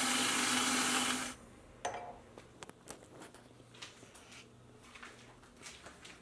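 CNC mill's end mill cutting an aluminium mount, the spindle driven by a DMM DYN4 AC servo motor: a steady hiss with a steady whine that cuts off suddenly about a second in. After that come quieter, scattered light clicks and knocks.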